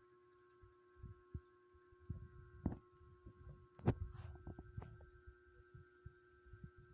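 Cat licking and grooming its fur: soft, irregular wet licking thumps and a few sharper clicks, busiest around the middle, over a faint steady electrical hum.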